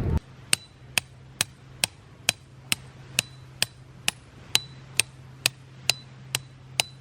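A tent peg being hammered into hard ground with steady, even blows, about two strikes a second, each with a short metallic ring. A faint steady low hum runs underneath.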